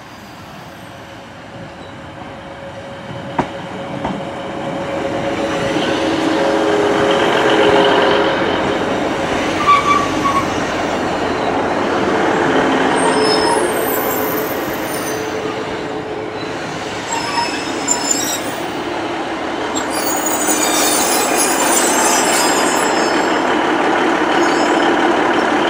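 Northern Class 150 Sprinter diesel multiple unit running into the platform. The engine and wheels on the rails grow steadily louder as it approaches. High-pitched squeals come in as it slows alongside.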